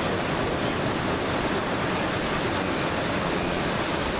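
Surf breaking and washing onto a sandy beach: a steady, even rush of wave noise with no single event standing out.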